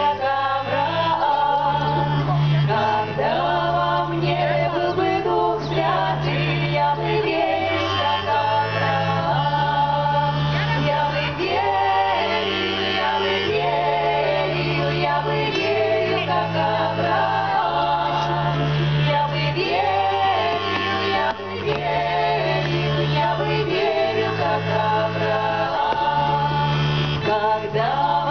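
Folk ensemble singing a 17th-century Russian sacred kant, women's and men's voices together, amplified through a PA, with accordion and plucked-string accompaniment; steady bass notes change every second or two beneath the singing.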